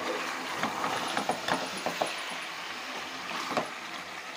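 Metal spoon scraping and clinking against the sides of an aluminium pot while stirring thick chicken curry: a run of irregular scrapes and clicks.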